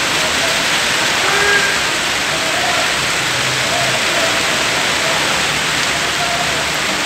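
Heavy rain falling steadily on a steel roof, a dense, even hiss of water.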